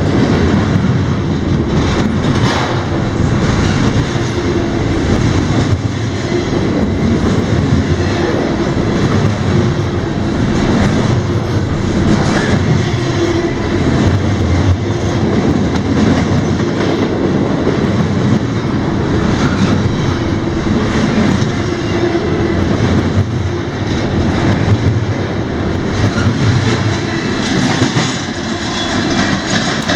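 Freight cars of a CSX train rolling past: a loud, steady rumble of steel wheels on rail, with occasional clicks.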